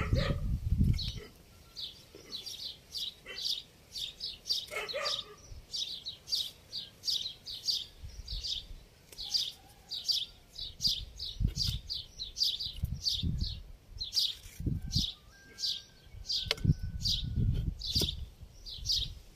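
A small bird chirping over and over, two or three short high chirps a second, with a few soft low thumps in between.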